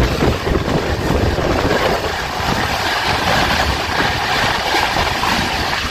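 Two express trains crossing at speed on adjacent tracks: the steady rush and wheel clatter of an electric locomotive and its LHB coaches going by alongside, over the running noise of the train being ridden, heard from its open door.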